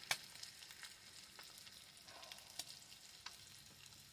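Eggs, green peppers and bread frying in a stainless steel pan on a gas burner: a faint, steady sizzle with scattered small pops, the sharpest just after the start.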